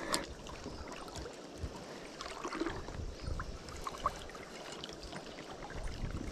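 Shallow trout stream flowing and gurgling, with low wind rumble on the microphone and a few light clicks, the sharpest just after the start and about four seconds in.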